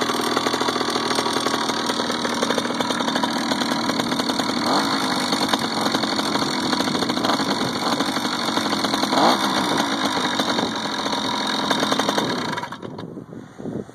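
Grubee GT5 66cc two-stroke bicycle engine with an expansion-chamber exhaust running steadily, with two brief rises in pitch. It stops suddenly near the end.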